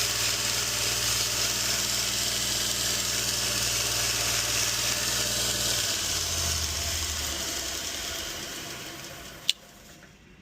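Belt grinder running with a steady motor hum and abrasive hiss while a knife's spine is satin-polished. About six seconds in the motor's tone drops and it winds down, and a single sharp click comes near the end.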